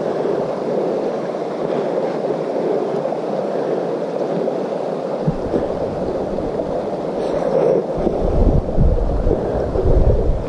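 Steady rushing noise of wind on the camera's microphone as it moves along the trail, with heavier low buffeting from about eight seconds in.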